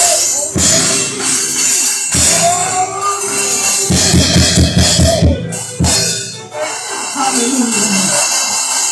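Live church praise music: a drum kit with heavy bass-drum strokes, including a quick run of drum hits about four seconds in, with voices singing or calling over it.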